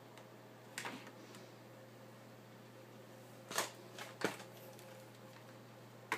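A handful of short clicks and knocks, about five, the two loudest close together in the middle, over a low steady hum: handling noise from the handheld phones being moved and tapped.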